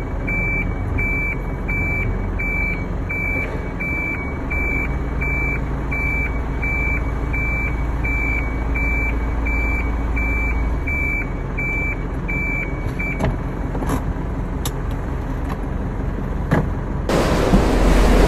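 A truck reversing, its back-up alarm beeping a single high tone about one and a half times a second over the running engine. The beeping stops about thirteen seconds in, and a louder rushing noise comes in near the end.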